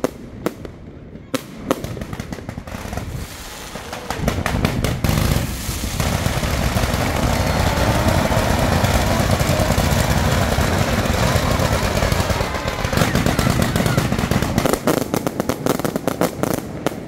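Fireworks: a few separate bangs, then about four seconds in a dense rapid-fire barrage of launches and bursts that runs for about ten seconds before thinning back to separate bangs near the end.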